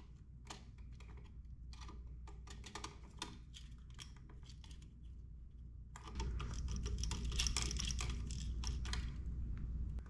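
Small irregular clicks and ticks of needle-nose pliers and bare copper ground wire against a plastic outlet receptacle as the wire loop is worked around the ground screw. About six seconds in the clicking gets louder and busier.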